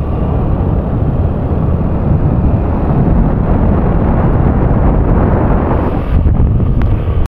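Heavy wind buffeting the microphone of a phone held up on a moving motorbike, a dense low rumble that cuts off abruptly near the end.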